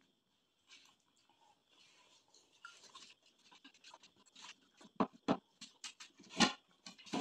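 Spoons scooping and scraping the flesh of halved watermelons, with small wet clicks of eating. Several sharp knocks come in the second half, the loudest a little before the end.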